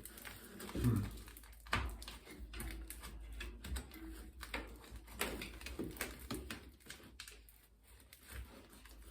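Scattered light clicks, taps and rubbing from hands working a hardened, crumbling old bicycle tire and its stuck valve stem off the rim, with a short low voice sound about a second in.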